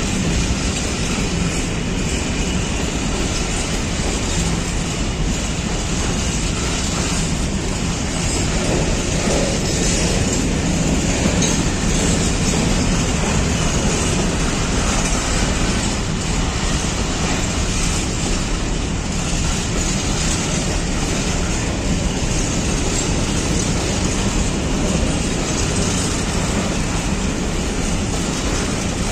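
Freight train of covered hopper wagons rolling past at steady speed: a continuous loud rumble of steel wheels on rail, with faint repeated clacks over the rail joints.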